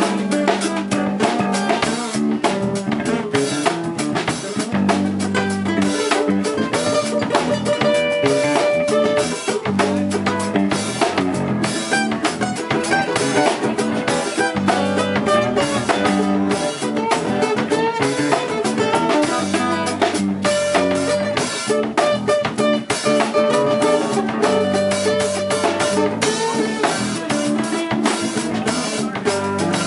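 Live band playing together: a Pearl drum kit keeping a steady beat under electric bass and two guitars, one acoustic and one electric.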